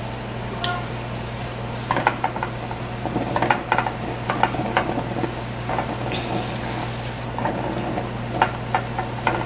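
A tortilla sizzling in hot coconut oil in a skillet, with scattered clicks and scrapes of tongs against the pan as it is lifted and turned.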